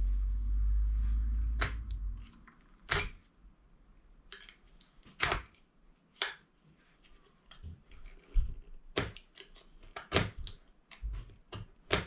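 Screwdriver scraping and clicking against a microwave oven transformer's coil and steel core, prying at the coil's wrapping to see whether the winding is copper or aluminium. A low rumble of handling in the first two seconds, then irregular sharp clicks and short scrapes every second or so.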